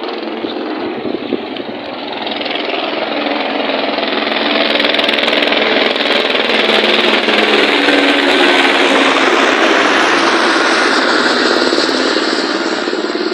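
Firefighters' helicopter rotor and engine noise, a loud rapid chop that swells to its loudest around the middle and then eases off.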